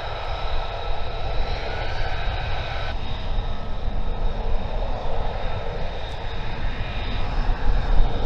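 An F-35B Lightning II's jet engine running at taxi power as the fighter rolls along the taxiway: a steady high whine over a low rumble. The whine's pitch shifts abruptly about three seconds in.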